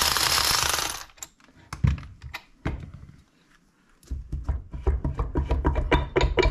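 Metal parts of a Bridgeport mill vise being worked free by hand where they are bound up on the sides. A loud hiss for about a second is followed by scattered clicks and knocks. About four seconds in comes a fast run of clicking and scraping over a low rumble.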